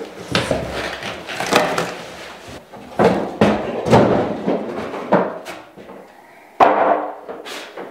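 Unpacking noise: a benchtop oscillating edge belt/spindle sander and its cardboard box being shifted and set down, making a series of knocks and thumps, with the loudest, sudden thump near the end.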